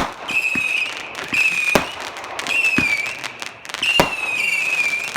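Fireworks going off: sharp bangs at the start, a little under two seconds in and about four seconds in, with a wavering high whistle from whistling fireworks coming and going between them and a scatter of small crackling pops.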